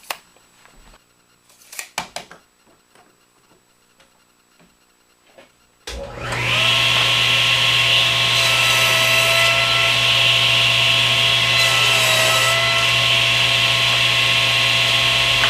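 After a few quiet seconds with light knocks, an electric woodworking saw starts about six seconds in and runs steadily with a loud hiss and hum, its pitch dipping briefly about halfway through its run as the blade crosscuts a small piece of oak.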